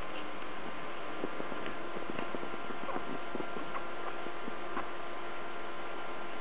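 Newborn Shih Tzu puppies suckling: a run of small, irregular smacking clicks from their mouths at the teats, over a steady electrical hum.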